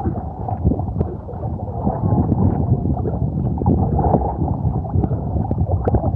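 Water sloshing and gurgling around a kayak on a moving river, with scattered small knocks.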